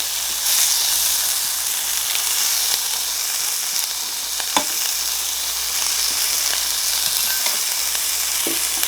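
Korean barbecue meat sizzling steadily on a hot grill, an even frying hiss, with one sharp click about four and a half seconds in.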